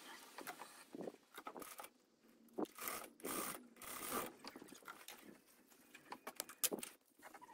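Fabric and sewing gear being handled: faint, irregular rustles, scrapes and small clicks, with a couple of sharper clicks.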